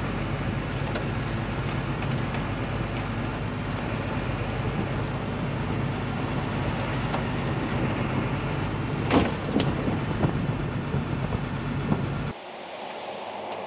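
Flatbed tow truck's engine running steadily while its winch pulls an overturned car back upright. About nine seconds in comes a loud thud with a few smaller knocks after it as the car drops onto its wheels, and the sound cuts off suddenly near the end.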